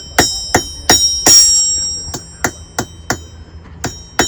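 Blacksmith's hand hammer striking hot iron on an anvil, about three blows a second, each leaving a bright metallic ring. The blows are heavier in the first half and lighter and quicker toward the end, as when drawing out a nail rod.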